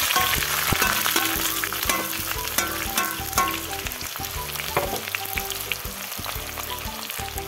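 Chopped onions frying in hot mustard oil in a metal kadhai: a steady sizzle with scattered pops and crackles. It is loudest just after the onions go in and eases off a little over the following seconds.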